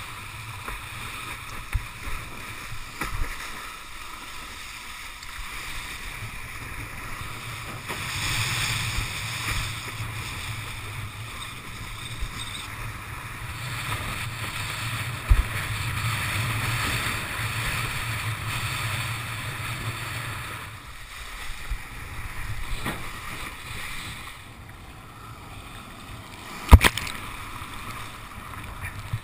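Windsurf board planing over choppy sea: a steady rush of wind and water with occasional knocks as the board hits chop, swelling louder twice. Near the end comes a single sharp, loud crash as the windsurfer wipes out into the water.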